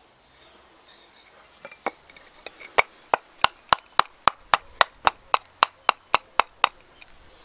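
Axe chopping a piece of seasoned alder: a few light taps, then a quick even run of about fifteen sharp strikes, roughly four a second, starting about three seconds in.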